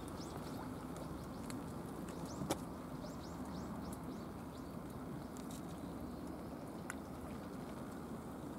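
Steady low outdoor background noise at a harbour quayside, with faint lapping of water against the quay wall and boat, a few faint high chirps in the first few seconds, and a sharp click about two and a half seconds in.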